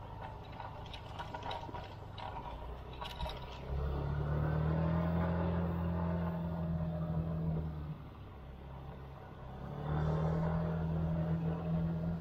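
Small motorcycle engine pulling under throttle on a rough trail, in two surges of several seconds each, with a dip between them. Scattered clattering comes before the first surge.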